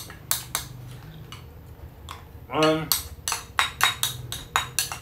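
Eating utensil clinking against a dish while pomegranate seeds are scooped up: a string of sharp clicks, some ringing briefly, coming faster in the last two seconds.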